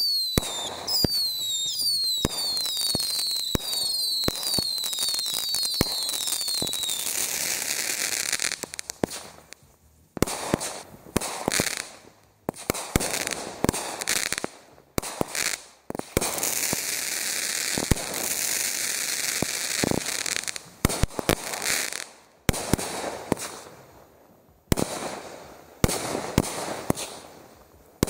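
Consumer fireworks going off. For the first several seconds there is a rapid run of shrill whistles, each falling in pitch. Then comes crackling and a long string of sharp bangs and pops as the shots burst overhead.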